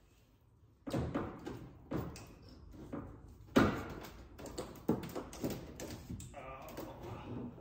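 Irregular knocks and thuds, roughly one a second, as the trim at the rear wheel arch of a 1995 Chevrolet Caprice wagon is pulled and pushed against the body by hand.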